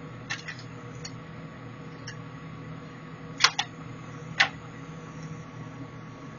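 Sharp metallic clicks and clacks from an FN 1923 bolt-action rifle being handled, a few light ones followed by three louder clacks about three and a half and four and a half seconds in.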